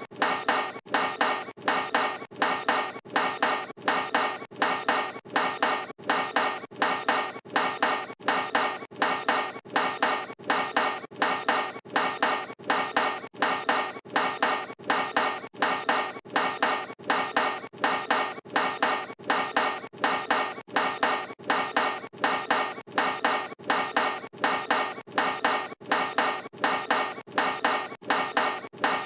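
A basketball clanking off a metal hoop rim over and over in an even, quick rhythm, each hit ringing briefly: the sound of a missed shot, a 'brick', repeated as a loop.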